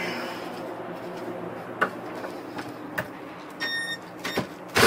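Hand work on the boat seat's bolts: scattered clicks and knocks, a brief squeak about three and a half seconds in, and a loud short rasp at the very end, over a steady low hum.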